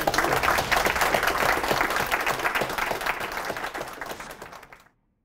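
Audience applauding, a dense patter of many hands clapping that fades and then cuts off abruptly near the end.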